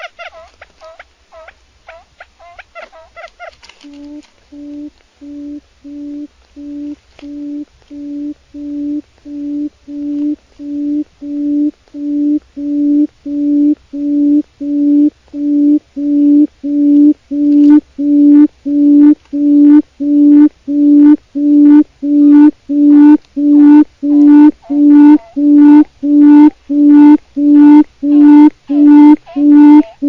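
Quail calling: a brief burst of rapid chattering calls, then a low hooting note repeated evenly, about three notes every two seconds, growing steadily louder through the series.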